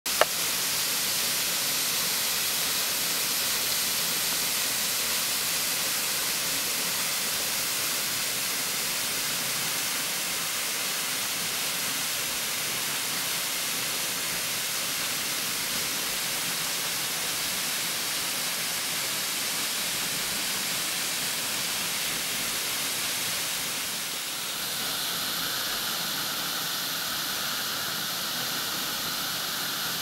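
Steady rushing hiss of water from a partly frozen waterfall, falling behind hanging icicles onto an ice cone below. The sound shifts slightly about 24 seconds in.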